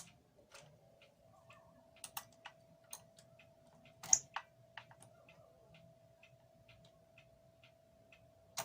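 Garrard SL-95 idler-drive record changer running: a faint steady hum with light, irregular mechanical ticks, and a louder click about four seconds in.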